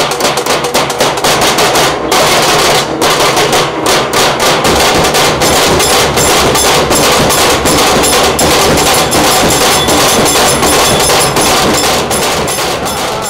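Music dominated by fast, steady drumming.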